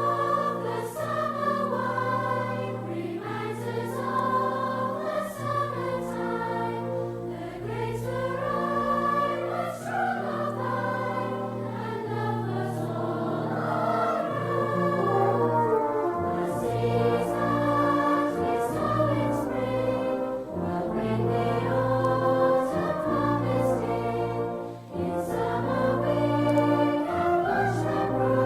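Music: a choir singing over sustained low notes.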